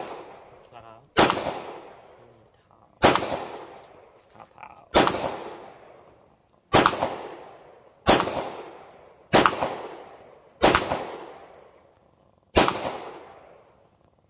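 Eight single 9mm pistol shots, spaced about one to two seconds apart, each followed by a long echoing decay.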